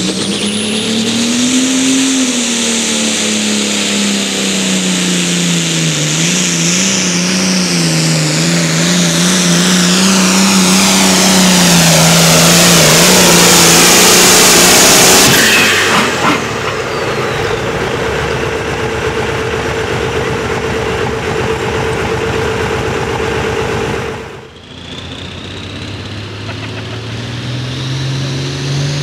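A Farmall-bodied modified pulling tractor's engine at full throttle under load, its pitch wavering as it pulls the sled and growing louder for about fifteen seconds, then dropping off sharply. After an abrupt cut, a second modified pulling tractor's engine (IH 1066) revs up, rising in pitch near the end.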